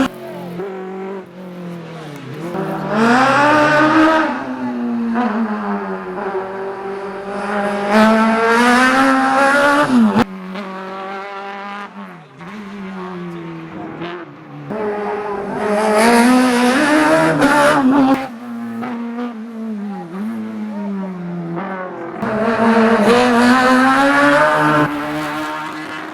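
Small four-cylinder hatchback race car engine revving hard on full throttle and dropping back again and again as it is driven through slalom chicanes, with four loud surges of rising revs; two of them cut off suddenly.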